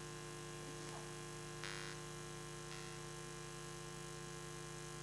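Steady electrical mains hum from the public-address sound system, made up of several fixed tones, with a brief faint hiss about a second and a half in.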